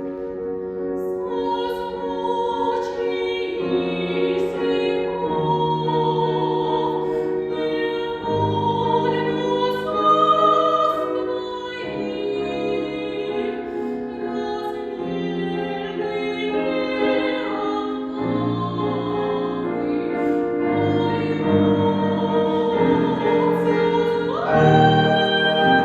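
A classically trained female voice sings an art song with piano accompaniment, holding long notes with vibrato. Near the end she rises onto a long sustained high note.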